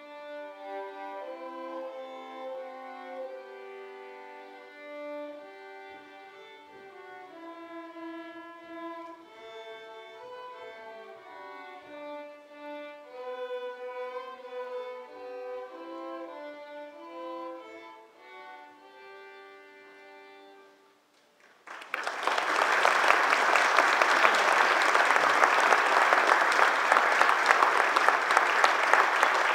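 A string orchestra led by violins plays a passage of held notes that ends about 21 seconds in. After a brief pause, loud applause from the audience and choir breaks out and continues.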